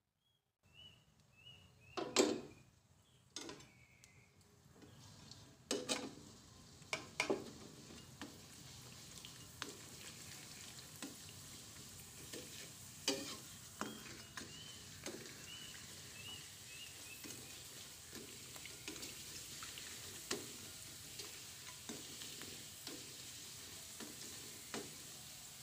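Krupuk puli, a rice-and-tapioca cracker, frying in hot oil in a wok: a steady sizzle that starts about a second in and keeps on. A metal spatula knocks and scrapes against the wok now and then, loudest in the first seven seconds.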